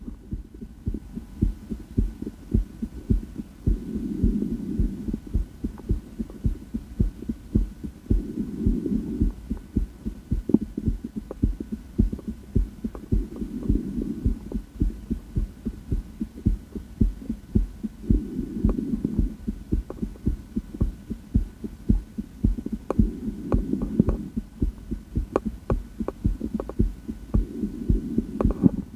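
A woman's heartbeat heard through a stethoscope on the chest: a steady run of low lub-dub thuds. A louder low swell comes and goes about every five seconds, over a faint steady hum.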